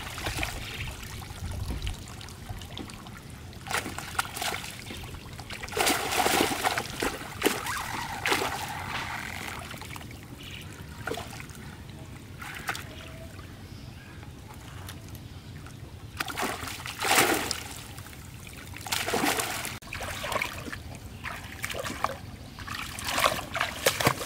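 Shallow water splashing and sloshing as a cast net is hauled in and lifted out, with water trickling from the mesh. The splashing comes in several separate bursts.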